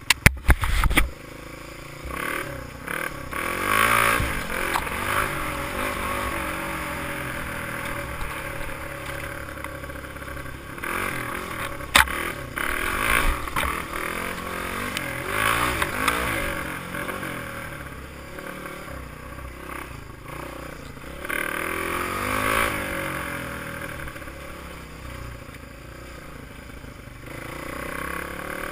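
Honda XR200 dirt bike's four-stroke single-cylinder engine revving up and down as the bike is ridden hard along a bumpy trail. Sharp knocks and clatter cut in over it, the loudest just after the start and again about twelve seconds in.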